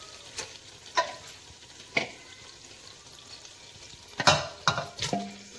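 Marinated chicken being scraped from a steel bowl into a pot of frying masala, with the masala sizzling throughout. There are metal clinks about once a second, then a quick run of louder knocks of the bowl against the pot about four seconds in, the last one ringing briefly.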